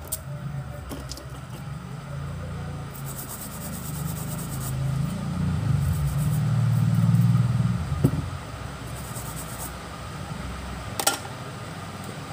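A low rumble that swells to its loudest about seven seconds in and then fades, with a sharp click just after the peak and another near the end.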